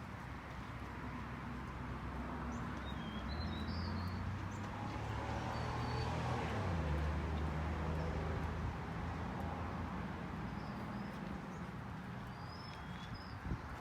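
Small birds chirping now and then over a low engine hum that swells and then fades in the middle, like a vehicle passing. One short click near the end.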